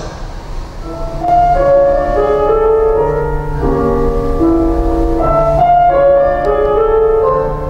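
Soft instrumental film-score music led by piano, starting about a second in, played back through a hall's loudspeakers.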